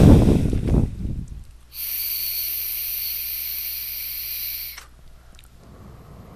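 Steady airy hiss of air being drawn through a Youde Zephyrus rebuildable tank on a Heatvape Invader Mini V2 temperature-control mod as it fires, lasting about three seconds and stopping sharply, followed by a faint exhale.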